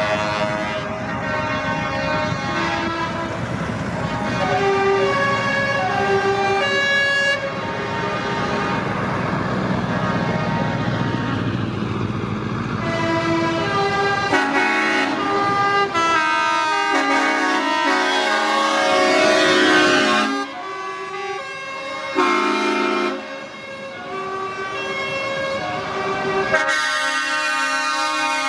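Convoy of semi-truck tractors driving past with their air horns blaring, several horns of different pitches sounding over one another, over the rumble of the diesel engines.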